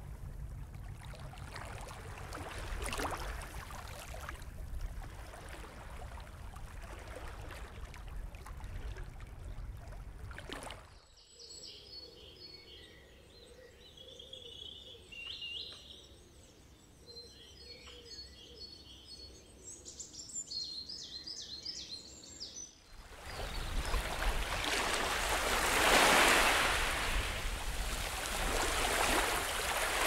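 Sea water sloshing and lapping; about eleven seconds in it cuts to quieter birdsong with high chirps and trills. About twenty-three seconds in it cuts to surf washing in over rocks, the loudest part, swelling twice.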